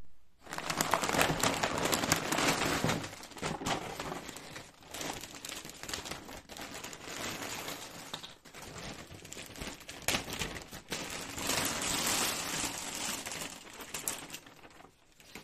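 Plastic LEGO polybags and a large shopping bag crinkling and rustling as they are handled and tipped out, with small hard plastic LEGO animal figures clicking and clattering against each other.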